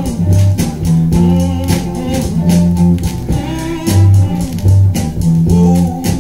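Gospel blues record playing from a 45 rpm vinyl single on a turntable: guitar phrases over a repeating bass line.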